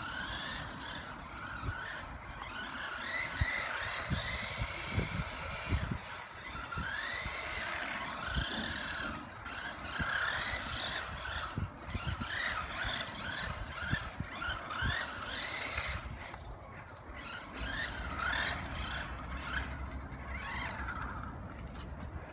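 Electric drive motor and gears of an HBX Rampage 1/18 RC crawler whining, rising and falling in pitch with repeated bursts of throttle. Scattered knocks as the truck runs over rough ground.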